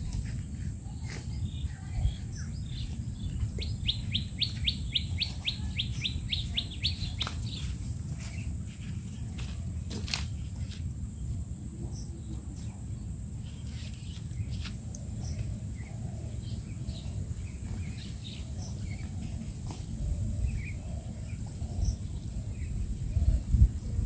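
Birds chirping and calling, with a fast trill of repeated notes a few seconds in, over a steady high hiss and a low rumble.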